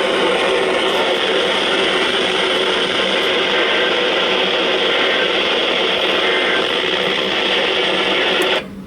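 Steady hiss of radio static from a weather radio tuned to a weak channel. It cuts off suddenly near the end as the broadcast comes through.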